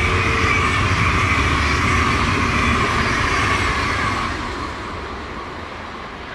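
SBB double-deck passenger train running past, a loud steady rolling noise of wheels on rail that fades from about four seconds in as the last coaches draw away.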